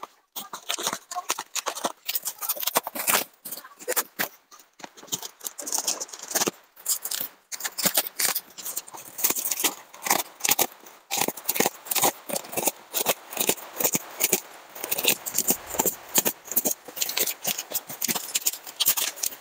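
Black plastic wrapping and packing tape crackling, rustling and tearing as they are slit with a cutter knife and pulled off a packaged tyre, in a rapid, continuous run of crinkles and rips.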